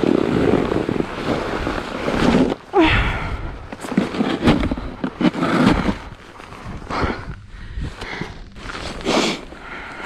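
Scraping and crunching on packed snow with irregular knocks and rustling close to the camera, loudest in the first three seconds.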